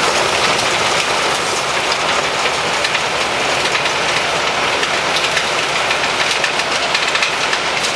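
Rubble Master RM80 mobile impact crusher running under load: a steady, loud machine noise thick with a rapid clatter of broken stone.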